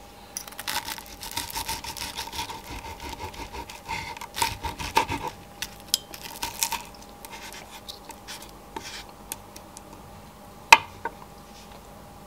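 Kitchen knife cutting food on a wooden cutting board: a quick run of short slicing scrapes and taps, thinning out after about seven seconds, with one sharp knock of the blade on the board near the end.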